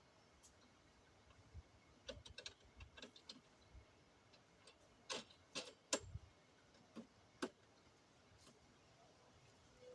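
Scattered light clicks and taps, a quick cluster about two seconds in and a few sharper clicks between five and seven and a half seconds in.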